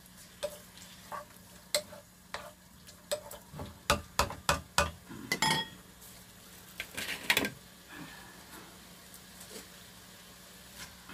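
Wooden spatula stirring and knocking against a frying pan as beef pieces fry with a faint sizzle. The knocks come in an irregular run, busiest in the middle, with one brief ringing clink.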